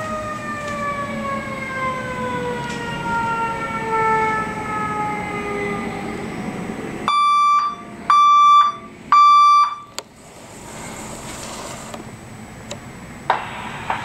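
A fire engine's siren winding down, its wail falling slowly in pitch, over the hiss of rain and traffic. About seven seconds in, a building fire alarm sounds three loud, even beeps, the temporal-three evacuation pattern.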